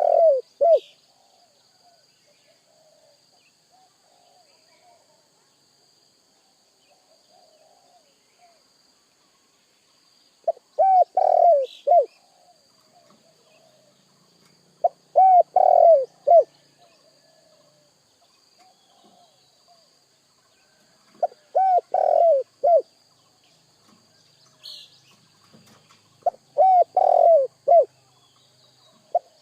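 Spotted dove (tekukur) cooing: loud phrases of several rolling coos about a second and a half long, repeated every five seconds or so with fainter cooing between them.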